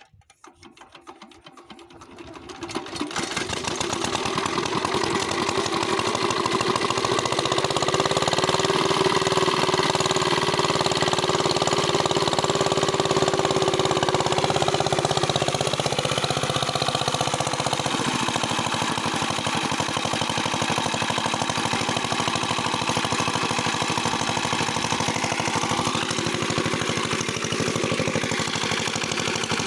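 16 hp single-cylinder hopper-cooled diesel engine starting up, picking up speed over the first few seconds, then running steadily as it drives a water pump, with water gushing from the pump outlet.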